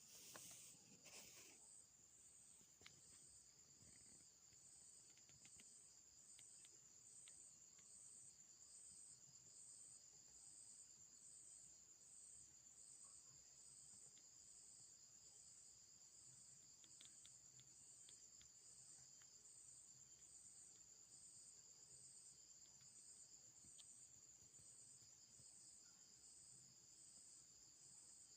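Faint, steady high-pitched insect trilling with a slow regular pulse, with a few faint ticks.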